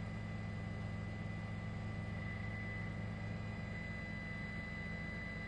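Steady low drone with a thin, constant high-pitched whine over it.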